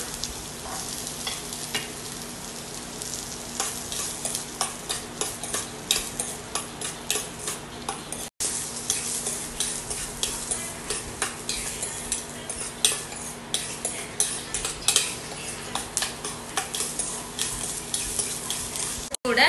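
Chopped onion and garlic sizzling in hot oil in a stainless steel kadai, with a utensil scraping and tapping the pan over and over as they are stirred.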